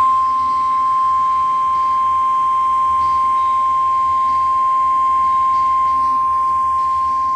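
NOAA Weather Radio 1050 Hz warning alarm tone: one loud, steady, unbroken high tone, the signal that a weather warning broadcast is about to follow.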